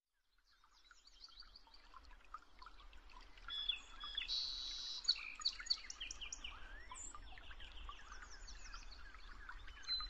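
Several songbirds singing and chirping together, fading in from silence over the first few seconds, with a dense buzzy trill about four seconds in and a faint low rumble underneath.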